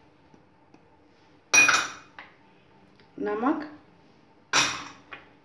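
Kitchen utensil clinking sharply against a stainless steel plate about one and a half seconds in, with a ringing tail, then a second short clatter near the end.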